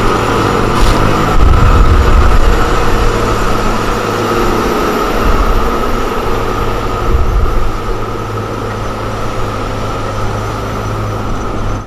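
Komatsu motor grader's diesel engine running steadily under load as it blades soil, a low rumble over a constant hum. The rumble swells a second or two in and again about seven seconds in, then eases a little.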